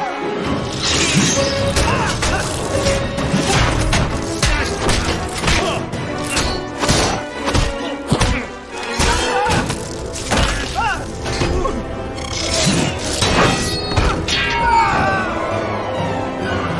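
Orchestral film score under a fight, with many punch, thud and crash sound effects hitting one after another.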